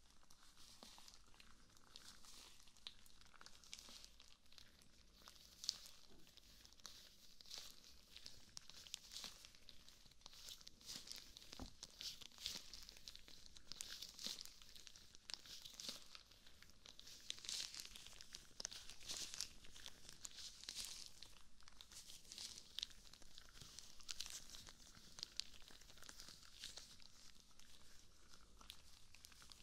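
White rubber gloves rubbing and sliding against each other as gloved hands interlace, close to a binaural microphone. The sound is a soft, hissy, crinkly rubbing with many small crackles, rising and falling with the hand movements, and one sharper click about six seconds in.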